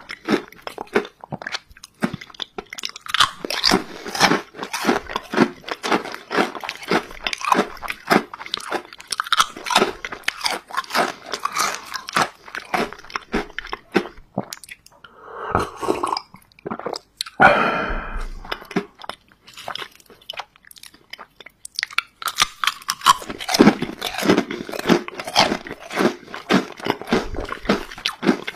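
Close-miked crunching and chewing of waffle-cut potato chips, a dense run of crisp crunches. About halfway through the crunching stops for a few seconds of gulps from a drink, then the chewing and crunching start again.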